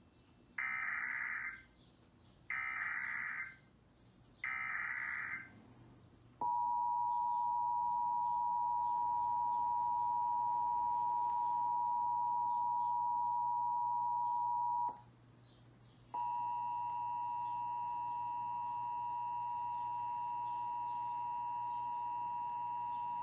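Emergency Alert System header: three one-second bursts of warbling digital data tones about two seconds apart, followed by the EAS attention signal, a steady two-tone beep of about eight and a half seconds. After a break of about a second, a second long steady alert tone starts and runs on past the end.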